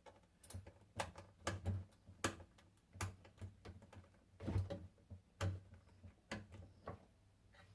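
About a dozen sharp clicks and knocks at irregular intervals: small parts and tools being handled and set down during a hands-on assembly.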